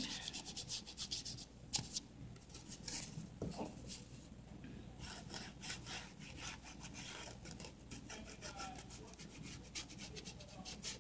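An ink pad rubbed along the edges of a book-page paper pocket: faint, quick, repeated scratchy strokes of pad on paper, coming thick and fast in the second half. The edges are being distressed with ink.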